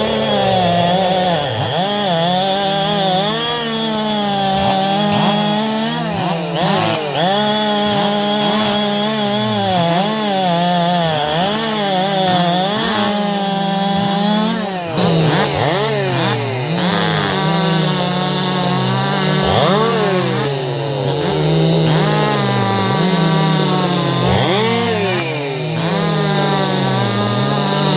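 Two-stroke chainsaw running at high revs, its pitch dipping and recovering again and again, as when it is cutting wood.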